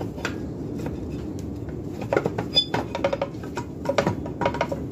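Metal parts and tools clinking and knocking as a part is worked back into place on an ATV, with a cluster of sharp clicks about two seconds in and more toward the end, over a steady low rushing noise.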